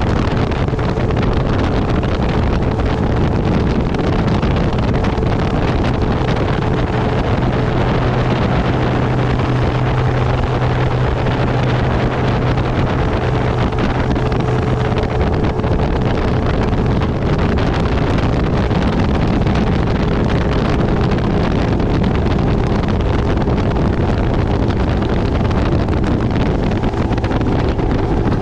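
Motorboat running at speed across the water, with heavy wind noise on the microphone. A steady low engine hum stands out for several seconds in the middle.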